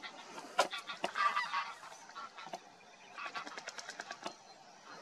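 Water birds calling in runs of short, goose-like calls, about a second in and again a little past three seconds, with a few sharp clicks between them.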